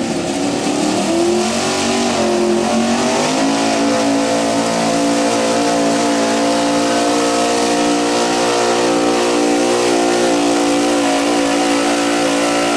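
Gas stock pickup truck's gasoline engine held at high revs at full throttle in a truck pull, pulling the weighted sled. Its pitch climbs about two to three seconds in, then holds steady.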